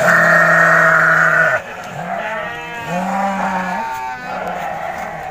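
Sheep bleating in a crowded pen: one long, loud bleat lasting about a second and a half, then shorter bleats, the last of them quavering.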